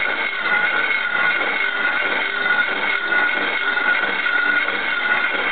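Slitting saw on an antique Biernatzki horizontal milling machine cutting steel plate: a steady, high whine with a second, higher tone above it, wavering slightly over a rough cutting noise.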